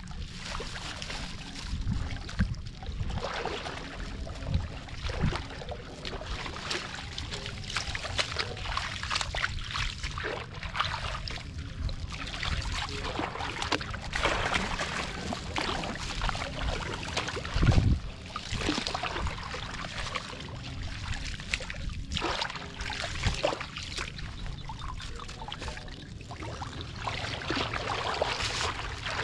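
Water sloshing and trickling as a woven bamboo basket is scooped through shallow water and lifted, water running out through the weave, over a steady low rumble. One louder dull thump a little past the middle.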